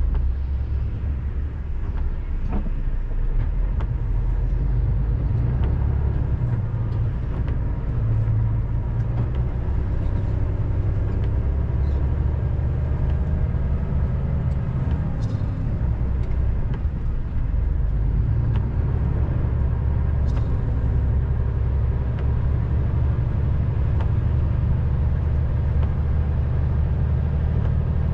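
Truck's engine and tyres droning steadily, heard from inside the cab on the move, with a few faint ticks.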